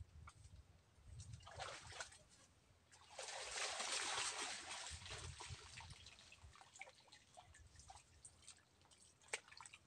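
Faint sloshing and splashing of shallow muddy water as people wade and grope through a ditch for fish, with the longest, loudest stretch about three seconds in.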